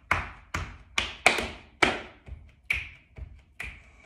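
Finger snaps keeping a steady beat, about two a second, the loudest a little over a second in.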